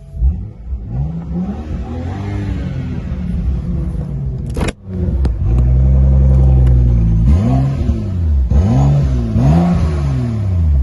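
BMW F10 engine running and revved in short blips, its pitch rising and falling several times. There is a sharp click about halfway through.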